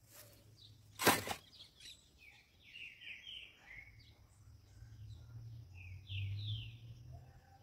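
Small birds chirping in short runs of quick falling notes, twice, over a low steady rumble, with a single short loud knock about a second in.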